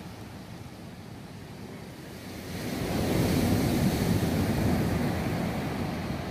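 Ocean surf breaking on a sandy beach. A wave builds about two and a half seconds in, crashes and washes up the sand, then fades away.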